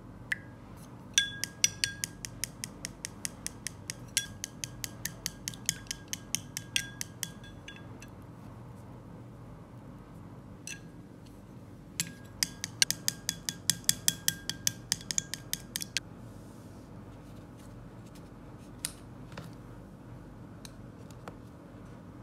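Wooden chopsticks beating egg and milk in a glass bowl, clicking against the glass about five times a second in two bouts with a pause between, each click with a short glassy ring. A few single taps follow near the end.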